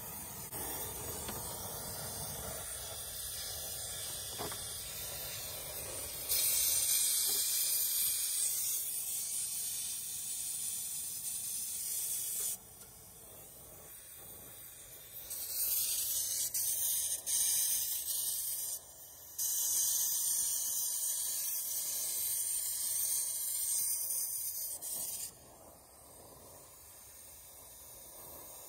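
Acetylene brazing torch with a rosebud tip hissing as it heats a copper refrigerant line. There is a steady hiss throughout, with several loud stretches that start and stop abruptly.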